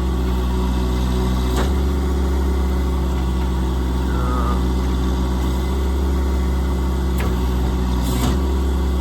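Engine running steadily on a service truck, with a few sharp clicks: one about one and a half seconds in and two near the end, where the engine's low note shifts.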